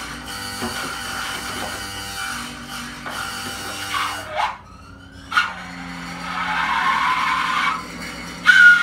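Free-improvised trumpet playing over acoustic guitar, with low sustained notes beneath. About four seconds in, the trumpet bends its pitch in swooping siren-like glides that drop and rise, then turns to a breathy, airy tone, and a thin steady whistle-like note enters near the end.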